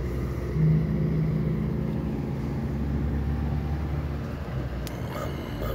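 Engine drone and road noise inside a moving vehicle's cabin at motorway speed: a steady low hum, with one short sharp click about five seconds in.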